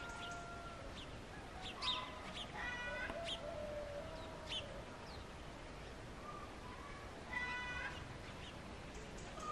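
Farmyard animal and bird calls: two drawn-out calls rich in overtones, about two and a half seconds in and again near seven and a half seconds, with a few short, sharp high chirps in between.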